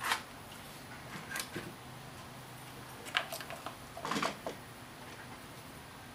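Handling noise from a string trimmer's red plastic engine cover and engine on a wooden workbench: about five short, light clacks and knocks, the loudest about three and four seconds in.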